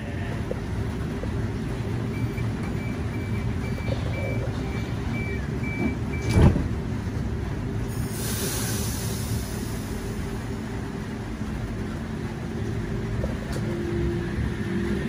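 Double-deck electric passenger train idling at a platform with a steady low hum. Its door-closing warning beeps sound rapidly for about four seconds, the doors shut with a loud thud, a burst of air hisses, and near the end the traction motors start to whine, rising in pitch as the train pulls away.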